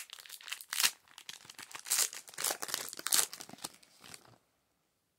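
Foil Pokémon booster pack wrapper crinkling and being torn open by hand, with several louder rips. The sound cuts off suddenly near the end.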